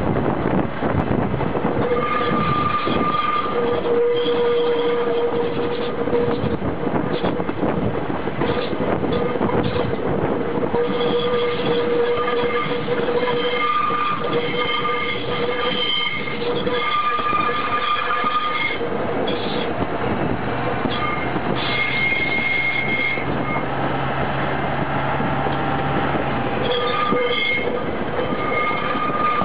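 Running noise of an SNCB ES401 railcar's bogie heard up close: steel wheels rolling on the rail with constant rattling and hard knocks from the running gear. High-pitched wheel squeals come and go every few seconds.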